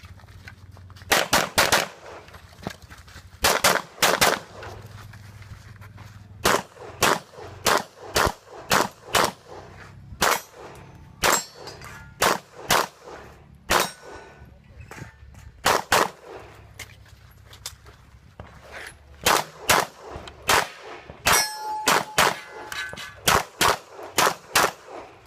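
Rapid strings of Glock pistol shots, often in quick pairs, with steel targets clanging and ringing as they are hit; a couple of short pauses break up the shooting.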